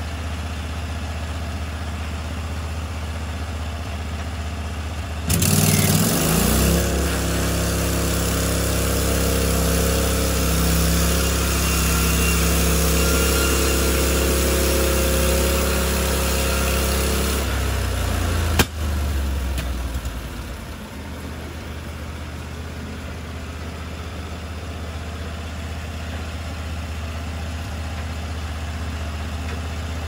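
Engine of a Norwood HD36 portable bandsaw sawmill running steadily as the saw head is pushed along a log. About five seconds in it suddenly gets louder, with a strong steady hum of several tones. After about twelve seconds it drops back with one sharp click and runs more quietly.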